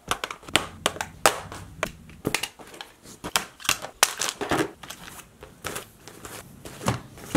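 Camera gear (a camera body, lenses, drone batteries) being handled, set down and packed into a camera backpack: a quick, irregular run of clacks, knocks and rustles, several a second.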